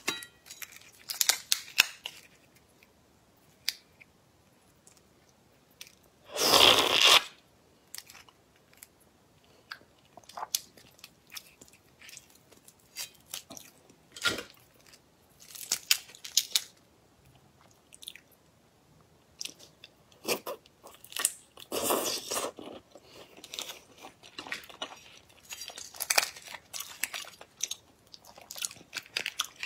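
Shells of large red shrimp cracked and peeled apart by hand close to the microphone: a run of irregular crackling snaps and crunches, with a longer, louder tearing crunch about six and a half seconds in.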